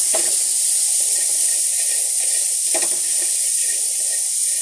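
Corn kernels sizzling in hot oil in an aluminium pot: a steady high hiss as a wooden spatula stirs them, with two short scrapes of the spatula against the pot, one at the start and one just under three seconds in.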